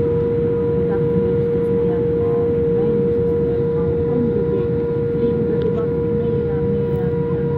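Cabin noise inside a Boeing 787 rolling on the ground with its engines at low power: a steady low rumble with a constant mid-pitched whine that neither rises nor falls.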